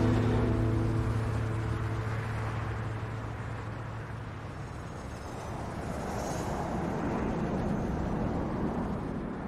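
The last held chord of the film score fades away over the first few seconds, leaving a steady wash of distant city traffic ambience that swells slightly in the middle and tapers off near the end.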